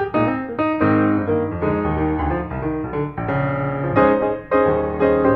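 Background piano music, a steady run of notes with chords.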